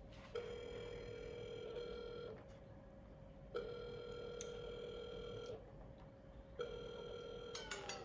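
Mobile phone on speaker playing the ringing tone of an outgoing call: a steady electronic tone, three times, each about two seconds long with about a second between.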